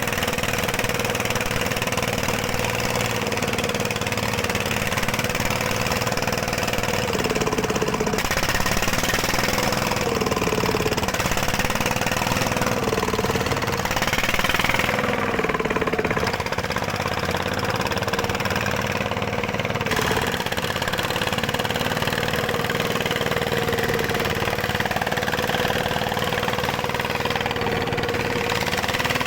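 Dongfeng diesel engine running steadily at a gold-mining site. Its speed dips briefly several times in the first half, then holds even.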